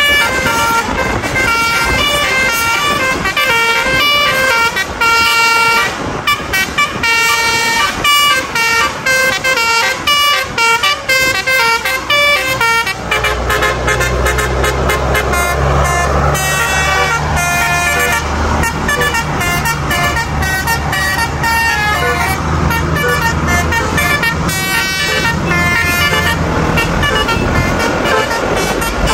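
Bus basuri musical horns playing quick melodic runs, the notes stepping up and down in pitch. From about halfway through, a deep, steady engine rumble runs under the horns.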